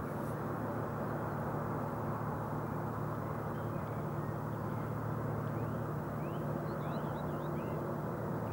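Steady low hum of a distant motor over outdoor background noise, with a few faint high chirps in the second half.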